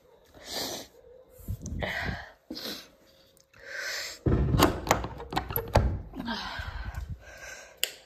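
Several short, breathy sounds from a person, and a loud run of thumps and rustles from the phone being handled between about four and six seconds in.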